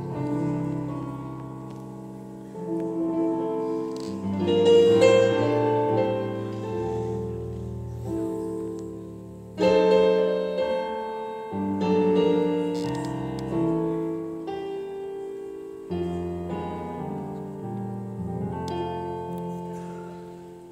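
Keyboard playing slow chords with a piano sound, each chord struck and left to ring out and fade before the next.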